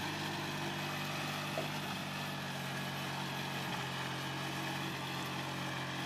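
Walk-behind tractor engine running at a steady speed as it pulls a potato digger through the soil.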